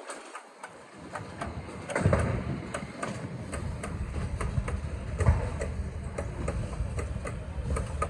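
Machinery running with a regular clicking, about three clicks a second, and a low rumble that starts about two seconds in and holds steady.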